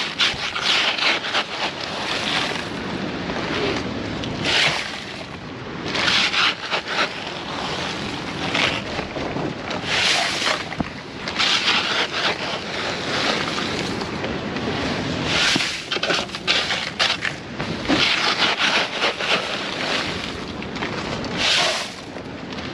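Ice being spread over freshly caught fish in a cooler to keep them from spoiling, heard as a steady noise with irregular hissing bursts a second or a few seconds apart.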